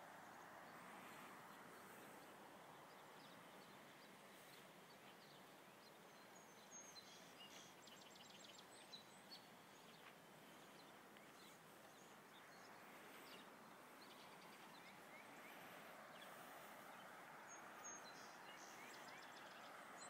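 Faint, steady rush of the flooded Youghiogheny River, with a few faint high bird chirps about a third of the way in and near the end.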